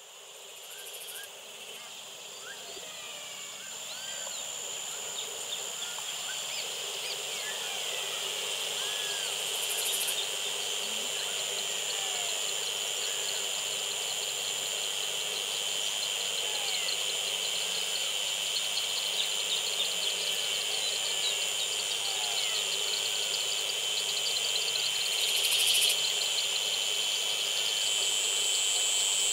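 Nature ambience of insects droning steadily at a high pitch, with many short birds' chirps and whistles rising and falling over it. It fades in over the first few seconds.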